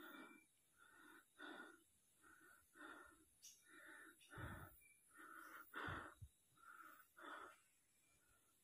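Faint, heavy panting breaths of a hiker labouring up a steep trail, about two breaths a second.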